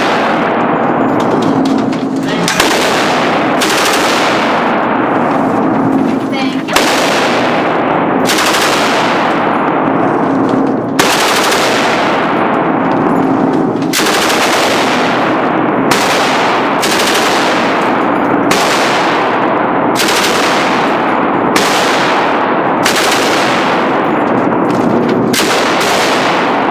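A firearm fired in single shots, about one every one to two seconds, each shot followed by a long ringing decay.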